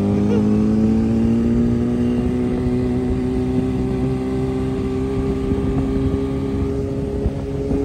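Motorcycle engine running on the move, its pitch rising slowly and steadily as it gathers speed, then holding.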